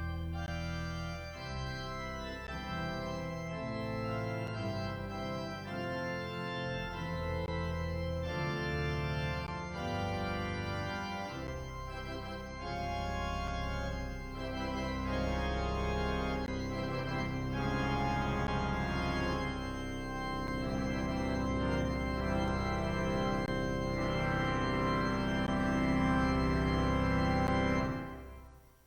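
Organ playing slow music of held chords, building louder toward a final chord that is released shortly before the end.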